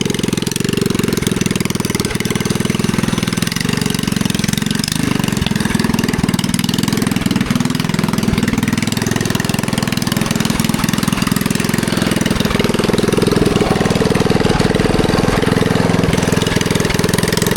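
Predator 212cc single-cylinder four-stroke engine of a mini bike running steadily, its pitch rising a little about twelve to fourteen seconds in.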